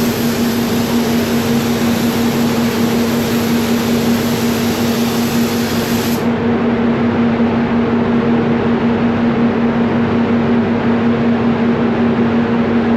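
Steady hum and air hiss of a paint spray booth during spraying of 2K clear coat, most likely the booth's extraction fans with an HVLP spray gun. The hiss loses its highest part abruptly about six seconds in.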